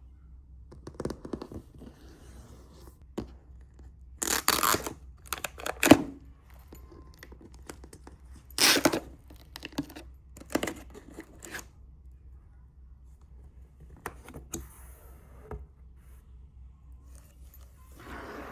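Packaging being torn open: several sharp tearing strokes, the loudest about four and a half and nine seconds in, with smaller scrapes and knocks between them.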